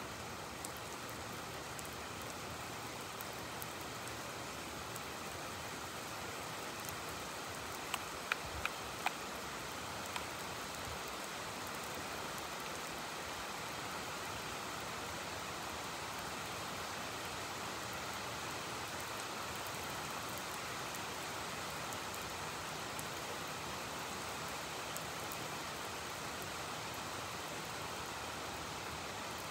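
Heavy rain falling steadily, with a quick run of four or five sharp ticks about eight seconds in.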